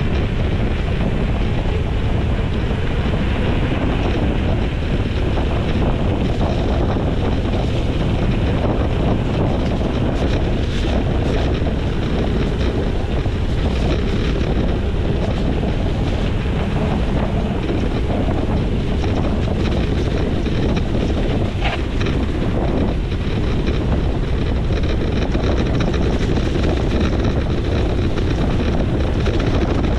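Steady wind noise buffeting the microphone, a loud low rumble without a break.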